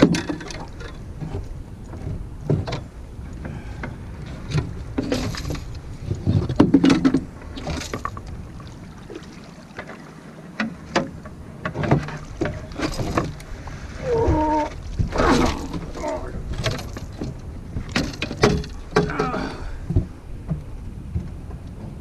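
Irregular knocks and clunks of a large blue catfish being hauled aboard a boat in a landing net and handled on deck, over a low rumble.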